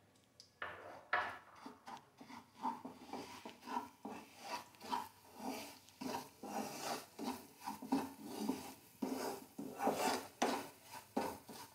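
A spatula scraping around a kadhai as semolina is stirred and roasted in hot ghee, in short rasping strokes about twice a second.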